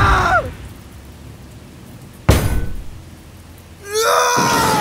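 A single sharp hit sound effect about two seconds in, like a punch or a body striking something. About a second before the end a long, held scream begins. It opens on the tail of a shouted line.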